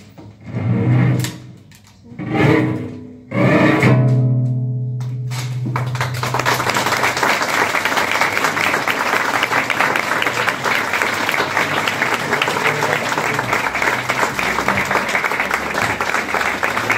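Solo cello playing its closing bowed phrases, the last a low note held and left to fade, ending the piece. About six seconds in, audience applause takes over and carries on evenly.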